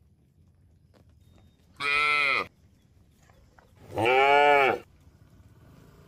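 Cattle mooing: two short calls about two seconds apart, each rising then falling in pitch.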